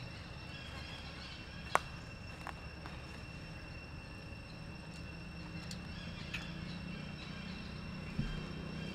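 Outdoor ambience with a steady, high insect drone, a few sharp clicks (the loudest about two seconds in), and a low hum that grows louder in the second half.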